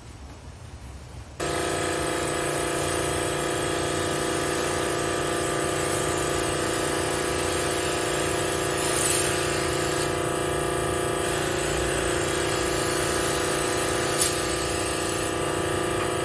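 An electric motor of air-conditioner cleaning equipment buzzing steadily, cutting in abruptly about a second and a half in and holding an even pitch, with two brief small surges later on.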